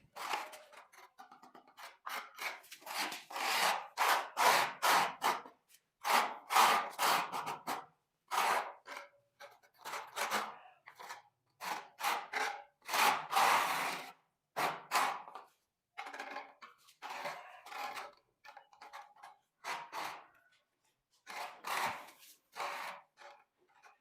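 Repeated rasping scrapes of a hand tool working on a tile floor, each stroke under half a second, coming in quick runs with brief pauses between them.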